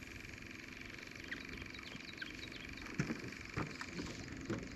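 Quiet ambience on a fishing boat: a steady low rumble with a faint high steady tone, a few faint chirps, then several light knocks in the second half.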